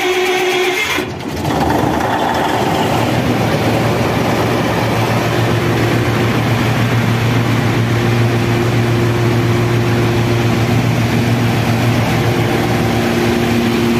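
Cummins diesel generator engine just started and running steadily at idle, a constant low hum; the sound dips briefly about a second in before settling.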